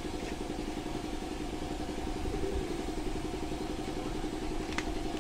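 Air compressor for spray-painting running steadily: a low, continuous mechanical drone with a fast even pulse.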